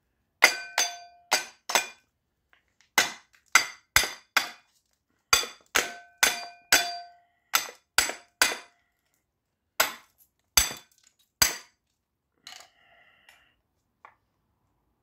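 A hammer striking the metal housing of a scrap electric motor to knock it apart for its copper: about eighteen sharp, ringing blows in bursts of three or four, stopping a few seconds before the end.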